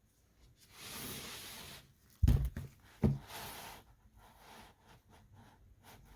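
Children's sound book being handled and opened: a rustle of about a second, then two sharp knocks about a second apart, another short rustle, and faint small handling noises.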